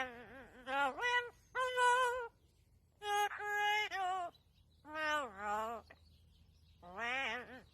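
A parrot vocalizing: a string of short pitched calls with a quick wavering pitch, each under a second long, with brief pauses between them.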